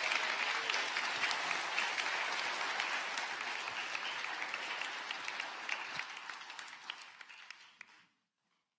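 Congregation applauding, a dense patter of many hands clapping that thins out over the last few seconds and cuts off suddenly about eight seconds in.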